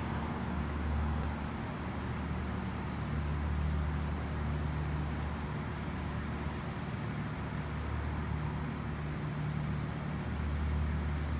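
Road traffic crossing a railway level crossing: a steady low engine rumble with tyre and road noise.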